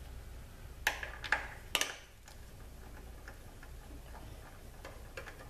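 Ratchet wrench clicking as it backs out the valve body bolts of a Subaru Lineartronic CVT, with three sharper clicks in the first two seconds, then fainter ticks.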